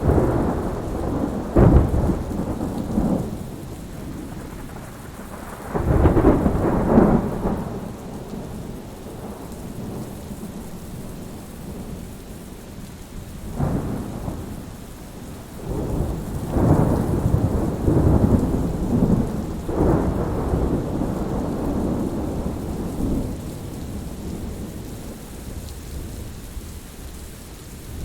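Thunderstorm: steady rain with thunder rumbling again and again. There are heavy rolls of thunder near the start and about six seconds in, and a long rolling stretch through the middle of the second half.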